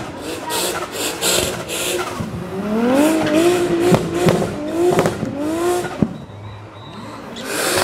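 Drift car sliding with its rear tyres spinning, the tyres squealing in a wavering tone that rises and falls, over the engine at high revs in repeated surges. It eases off about six seconds in, then picks up again near the end.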